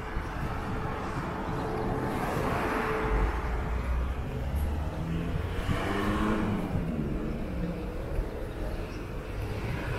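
Cars passing on a street: one goes by about two to three seconds in with a swell of tyre and engine noise, and a second about six seconds in, its engine note falling as it passes, over a steady low traffic rumble.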